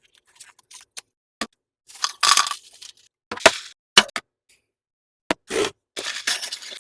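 Soap-making equipment being handled: a run of irregular sharp clicks and clinks mixed with short scraping sounds.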